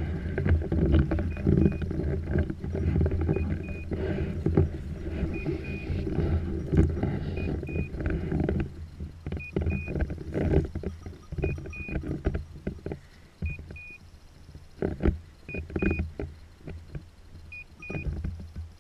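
Dog's beeper collar giving a short, high double beep about every two seconds, the point signal that sounds while the dog holds point. Under it, wind buffets the microphone, heavily through the first half, with scattered rustles and knocks of handling.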